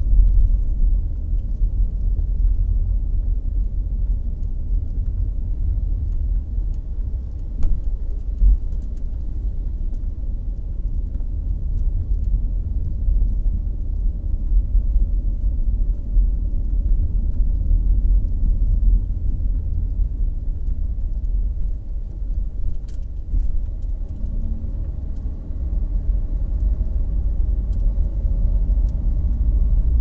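Steady low rumble of a car driving on a paved road, heard from inside the cabin: engine and tyre noise, with a couple of faint clicks.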